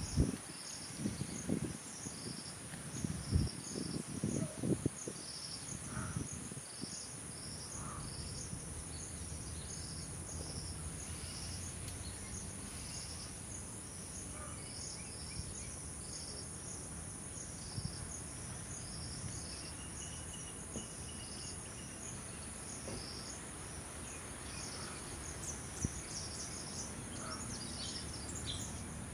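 Insects chirping: a steady high whine with a chirp repeating about once a second. A few low rumbling bumps come in the first several seconds.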